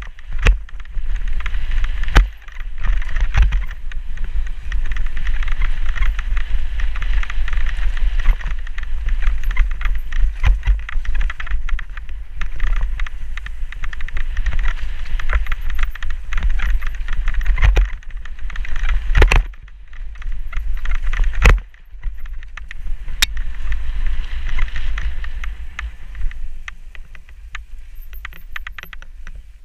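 Mountain bike ridden fast down a rough dirt singletrack: the tyres rumble over dirt and roots, and the bike rattles with sharp knocks over bumps. Wind buffets the camera's microphone throughout.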